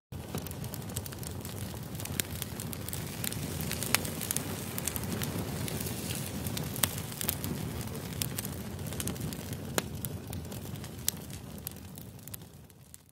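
Steady crackling noise with many scattered sharp pops, starting abruptly and fading out near the end.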